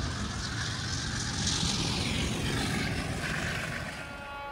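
Two MLW diesel locomotives passing close by: diesel engines running with a low rumble, and wheels rolling over the rails.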